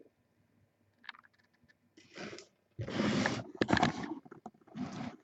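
Short bursts of rustling and scraping from something being handled, after a faint click about a second in; the loudest burst comes about three seconds in.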